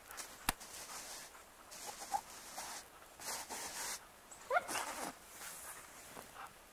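A dog gives one short rising whine about two-thirds of the way through, among bursts of scuffing noise and a sharp click near the start.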